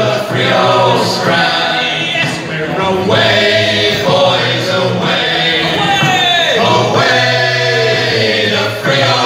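A group of voices singing a song together in chorus, over a steady low sustained note.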